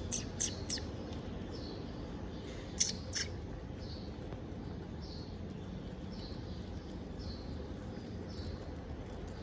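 Young hamsters chewing crisp lettuce and apple, heard as quick crisp crunching clicks about three a second at the start and two louder crunches about three seconds in. After that, only fainter short sounds about once a second.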